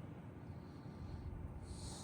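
Faint low outdoor rumble, with a short breath or sniff close to the microphone near the end.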